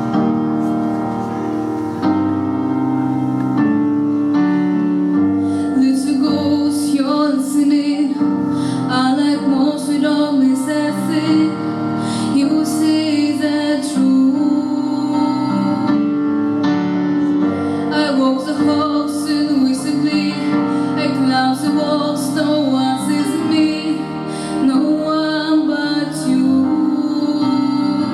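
A song with piano and a held low note underneath; a woman's singing voice comes in about five seconds in.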